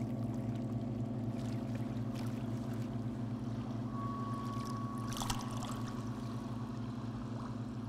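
Low, steady drone of a riverboat's engine, a deep hum made of several held tones. About halfway in, a single high pure tone joins it for about three seconds.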